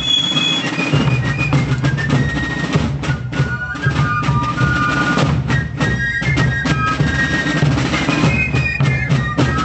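Fife and drum corps playing a march: shrill fifes carry the melody over a steady beat of drums.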